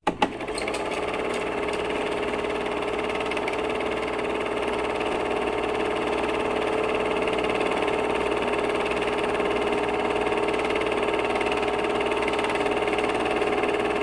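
Logo intro sound: a sharp hit, then a dense, steady drone of layered tones that holds at an even level.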